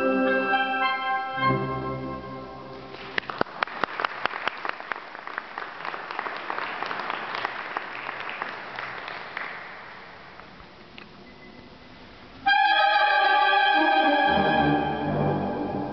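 Concert band of clarinets and saxophones holding chords that end about three seconds in, followed by applause that fades out. About twelve seconds in, the band comes in again, loud, with sustained chords.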